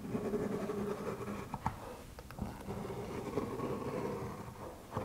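A glue brush scraping along the wooden edges of a speaker cabinet panel, with a few light knocks, over a steady hum.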